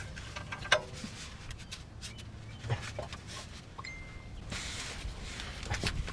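Scattered light metallic clicks and knocks of hand tools working on the exhaust bolts under the car, with a brief high squeak about four seconds in.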